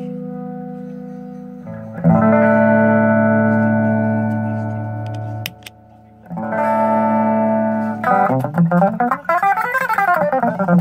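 Electric guitar through an ADL Compressor Sustain pedal: a chord struck about two seconds in rings long and even before being cut off, another chord follows after a short gap, then a quick run of single notes climbs and falls near the end. The pedal's LED is dark for the later chord and run, so those are played with the compressor bypassed.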